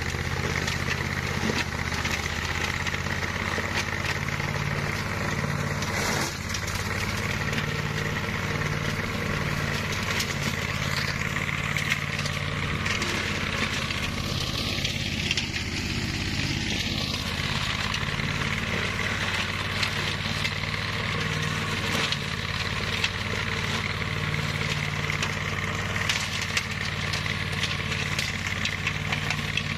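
Flail mower's engine running steadily under load while its chopping rotor cuts grass, with a constant crackle of many small clicks from the flails and cut debris.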